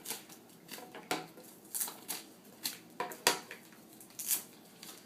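Plastic wrapping being peeled and pulled off laptop power supply bricks, crinkling in irregular sharp crackles.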